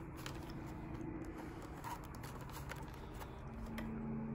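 Clear plastic protector cases holding die-cast toy cars being handled: a few faint, scattered clicks and taps of hard plastic over a faint low hum.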